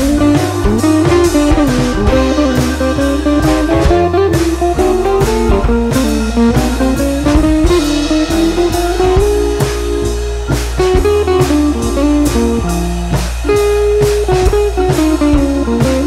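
Instrumental background music: a guitar melody over bass and a steady drum beat.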